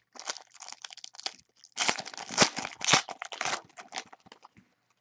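Foil trading-card pack wrapper being torn open and crinkled by hand, a run of crackling rustles that is loudest in the middle and fades out near the end.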